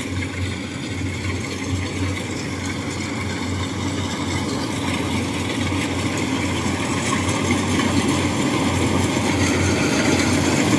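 Two rice combine harvesters running at work, cutting rice, a steady engine hum with a throbbing low beat that grows steadily louder as they come closer.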